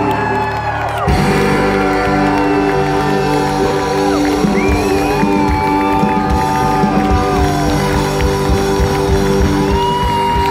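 Live Schlager band playing loud over an open-air concert PA, with held vocal and keyboard lines over a steady beat. Crowd cheering and whooping rises through it.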